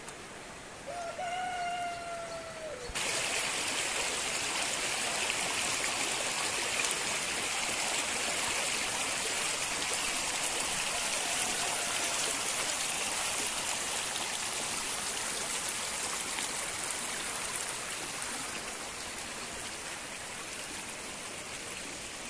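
Rainwater runoff rushing over rocks in a stream bed after a storm: a steady rush that starts suddenly about three seconds in and eases slightly toward the end. Before it there is one short, slightly falling pitched call.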